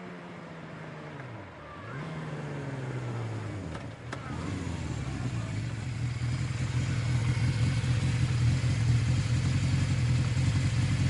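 Motorcycle engine running. Its pitch drops twice in the first four seconds, then it holds a steady pitch and grows louder toward the end.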